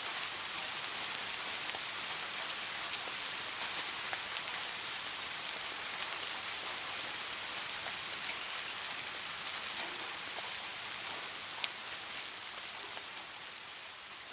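Soft steady rain: a dense hiss of drops with occasional single louder drop clicks, slowly fading out over the last few seconds.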